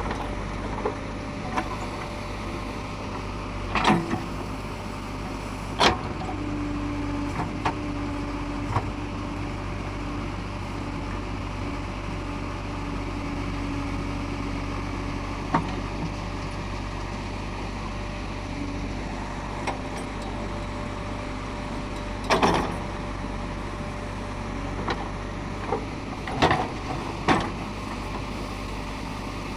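JCB 3DX Xpert backhoe loader's diesel engine running steadily as it digs, with a steady whine from about six to sixteen seconds in and occasional sharp knocks.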